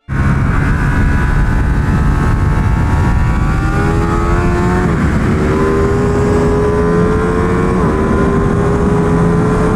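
Ducati Panigale V2's 955cc V-twin engine pulling hard under acceleration on track, its pitch climbing steadily through the revs. It upshifts with a sharp drop in pitch about five seconds in and again just before eight seconds, then climbs again.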